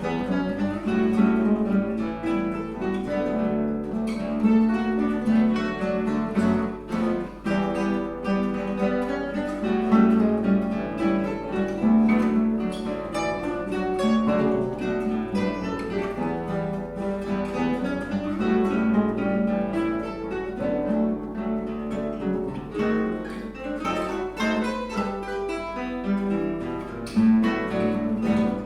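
Acoustic guitar ensemble playing a lively Brazilian choro in three parts, with many quick plucked notes over a moving bass line.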